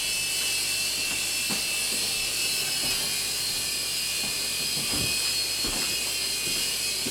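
Small infrared remote-control toy helicopter flying, its electric motor and rotors giving a steady high-pitched whir.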